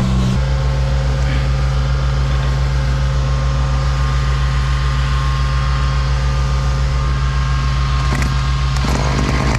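Septic pump truck's engine and vacuum pump running steadily, sucking out the tank through the suction hose. Near the end come a few sharp clattering strokes as the starter cord of a two-stroke crust-buster auger is pulled.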